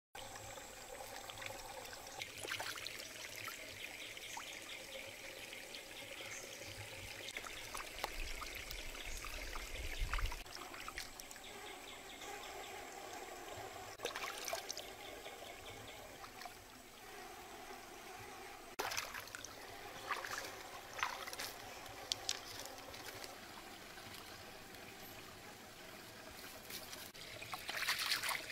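Shallow rocky stream trickling steadily, with scattered light knocks and small splashes. Near the end, hands splash water into a metal pan as it is rinsed in the stream.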